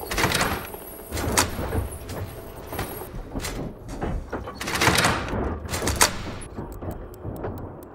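Mechanical sculpture machine clattering: metal parts knock and slide in swells of rattling noise, then give way near the end to a run of fast, even ticks, about five a second.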